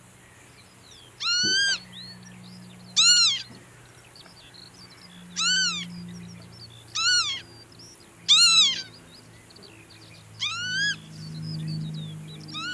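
Northern lapwing giving its wheezy 'pee-wit' call about six times, one every one to two seconds, each call rising and then falling in pitch.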